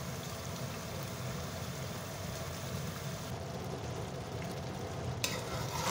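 Steady low rumble and hiss of a gas stove with chicken karahi simmering on it. A sharper hiss comes in about five seconds in.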